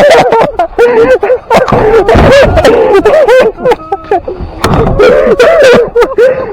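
A person laughing hard and close to the microphone, in a run of short pitched gasps of laughter, with sharp clicks mixed in.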